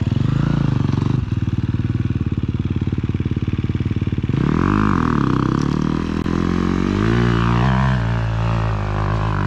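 Dirt bike engine idling with an even, steady pulse, then a little over four seconds in revving up and down in repeated throttle blips.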